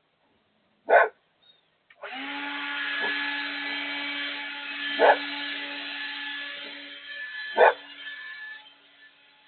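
A large flock of grackles calling together in a dense, clamorous chorus that starts about two seconds in and dies away near the end. Three loud, short sharp sounds stand out above it: about a second in, at about five seconds and near eight seconds.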